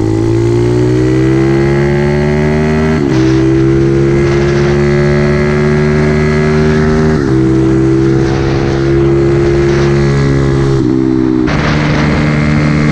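Mini trail bike's small single-cylinder four-stroke engine under way, its pitch climbing through each gear, with a quick drop at each upshift about three, seven and eleven seconds in. Wind buffets the microphone throughout.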